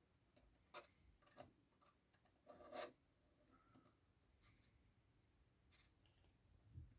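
Faint scraping and rubbing of a small hand tool against the inside of an iPhone 6s, clearing off leftover battery adhesive: a few short scratches and clicks, the longest about three seconds in, over near silence.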